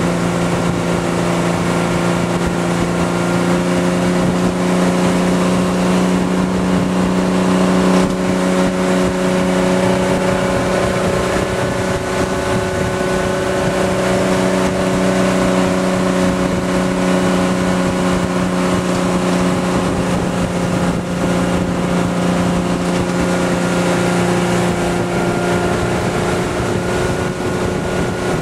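Tow boat's engine running steadily at wakeboard towing speed, heard from on board.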